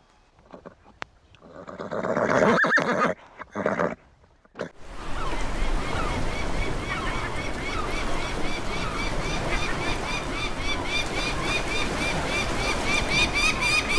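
A horse neighing and snorting in short separate calls. About five seconds in, a dense chorus of short, quickly repeated high chirps over a steady rushing noise takes over and runs on.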